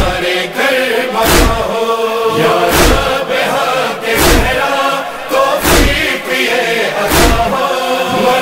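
Urdu noha (Shia lament) interlude: a chorus of voices chanting over a regular deep thump about every second and a half.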